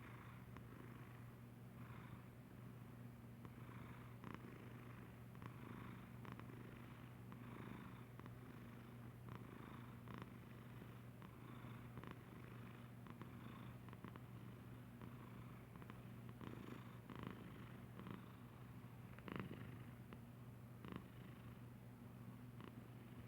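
A domestic cat purring steadily and softly, with a breathy rise every second or two and a few faint clicks.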